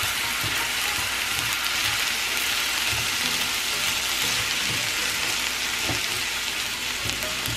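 Chicken, onions, bell peppers and diced tomatoes frying in a nonstick skillet: a steady sizzle, with soft knocks as a silicone spatula stirs the pan.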